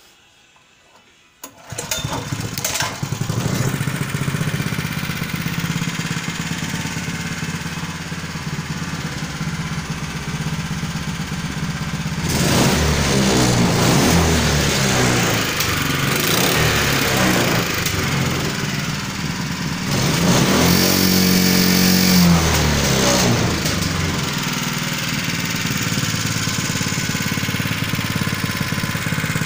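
Honda GX160 single-cylinder four-stroke engine starting about a second and a half in and running at idle, then revved up and down twice on a cable hand throttle before dropping back to idle. Its speed governor is disconnected, so the revs follow the throttle alone.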